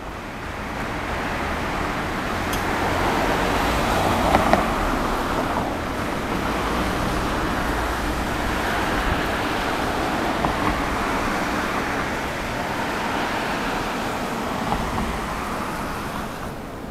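Road traffic noise, vehicles passing one after another so the hiss of tyres and engines swells and fades, over a low rumble.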